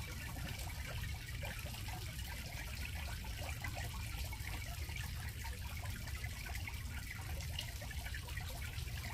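Steady rushing background noise with a low rumble underneath, even throughout.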